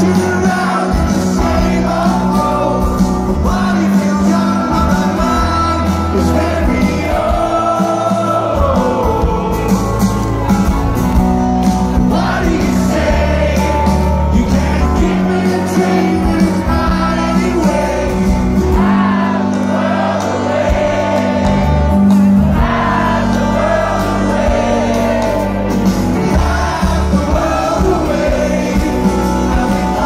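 Live rock band playing through a concert PA, heard from within the audience: guitars and drums under a male lead vocal singing the melody.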